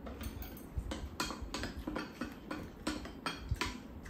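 Chopsticks and spoons tapping and clinking against ceramic bowls as two people eat, a series of short clicks about two a second, with eating noises in between.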